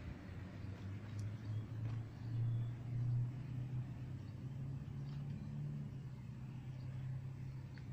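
Low, steady engine hum with a slowly wavering pitch, swelling a little about two to three seconds in.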